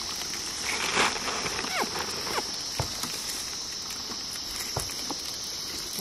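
Steady high drone of insects, with scattered knocks and a scrape as a pair of oxen haul a plough through the soil. There are a few short falling whistle-like calls around two seconds in.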